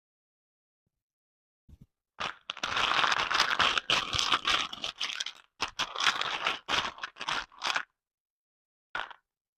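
Blind-bag packaging being torn open and crinkled by hand: a run of crackling tears and crumples with a short break partway through, then one last brief crinkle near the end.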